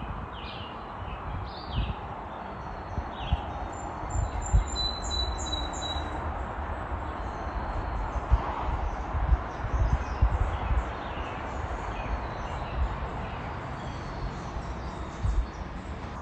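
Small birds chirping, short falling chirps mostly in the first few seconds and a thin high whistle a little later, over a steady outdoor hiss with scattered low bumps.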